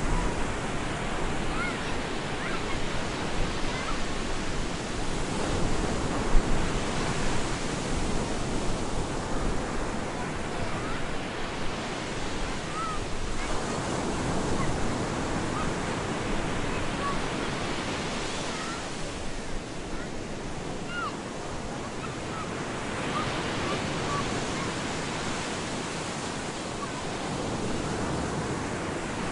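Ocean surf breaking and washing up a beach as a continuous rushing noise that swells with each wave, about every five seconds.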